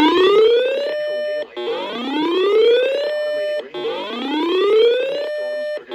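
Electronic whooping alarm tone: a pitched tone that sweeps upward for a little over a second, holds briefly, then cuts off, repeating about every two seconds, roughly three times.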